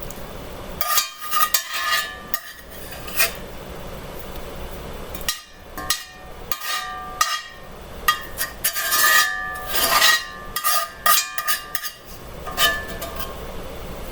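A large metal spoon knocking and scraping against a pot and dishes as pasta is served out, in irregular clinks, some ringing briefly, with a pause in the middle.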